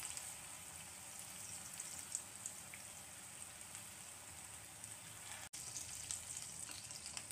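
Moong dal pakoras deep-frying in hot oil: a faint, steady sizzle with small scattered crackles.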